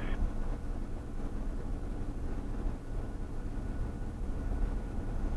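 Steady low rumble of road and engine noise inside a vehicle's cabin while it drives at highway speed.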